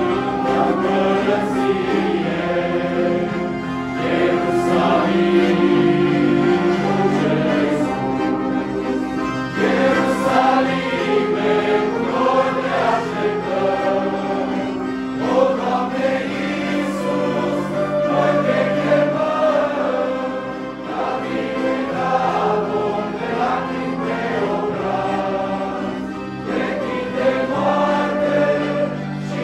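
A young men's church choir singing a hymn together, several voices holding sustained notes at once.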